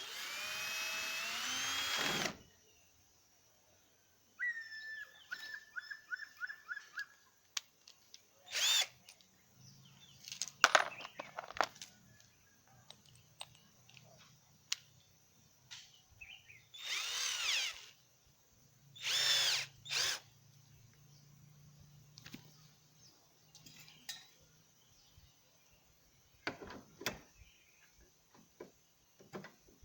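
Handheld power drill run in short bursts while fitting a mortice lock into a wooden door. The first run lasts about two seconds and rises in pitch as it spins up; a slower pulsing run and several shorter bursts follow, with clicks and knocks between them.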